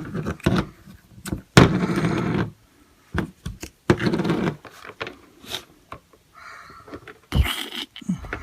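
Plastic Play-Doh kit tools and mould being handled on a table: a run of knocks, clicks and short scraping rustles, the longest about two seconds in.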